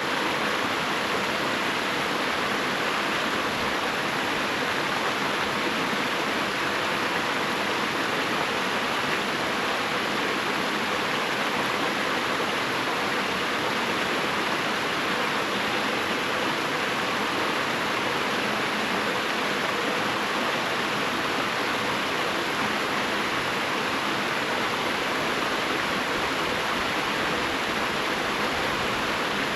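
Rushing water, a steady, unbroken roar of flowing water.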